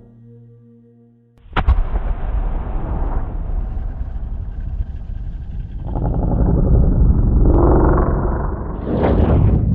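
Designed cinematic slow-motion impact effect: a sharp hit about a second and a half in, then a long, heavy, deep rumble that swells again in the second half.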